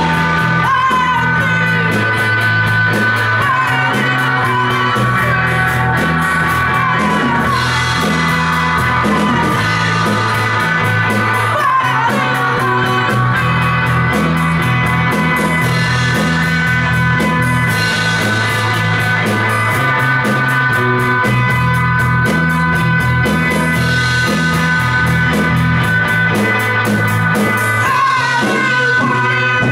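Live psychedelic rock band playing electric guitar, bass guitar and drums with singing, over a held bass line and a constant cymbal wash.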